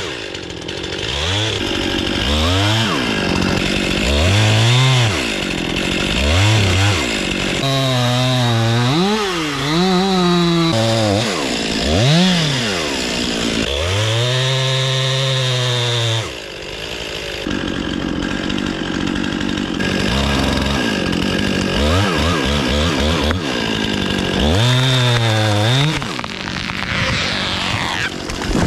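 Chainsaw revving up and down again and again as it cuts into a tree trunk for felling, with quick throttle blips between longer pulls.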